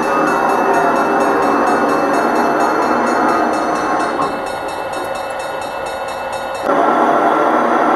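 Märklin gauge 1 model train running: the BR 38 steam locomotive's onboard sound and the hopper wagons rolling over the track give a steady rushing noise with faint regular ticks. A louder burst starts near the end.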